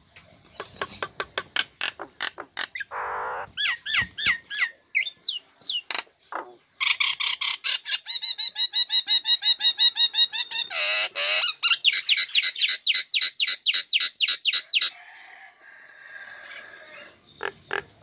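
A female common myna calling in full, continuous song: rapid chattering clicks and whistled notes. The middle stretch is a long, fast, loud run of even repeated notes that breaks off near the end into softer calls.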